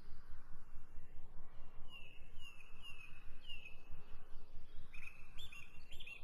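Birds chirping: a few short falling chirps, then a quicker run of chirps near the end, over a steady low rumble.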